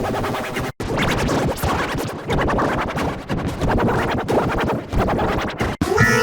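Heavily distorted, glitch-processed children's nursery song: a dense, smeared wash of music that cuts out briefly twice, about a second in and near the end.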